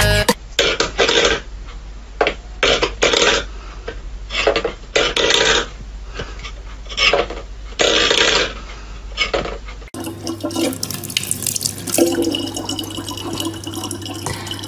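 A string of short, irregular noisy bursts, then from about ten seconds in a tap running a thin stream of water into a plastic water bottle, with a low steady hum underneath.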